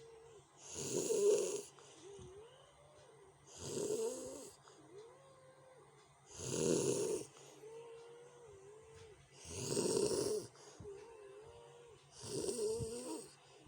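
A person snoring in sleep: five harsh, loud snores about three seconds apart, with a softer wavering whistle between them.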